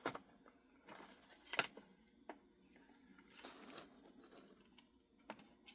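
A few faint sharp clicks and light rustling from hands handling small objects, such as a model locomotive being set on a test track.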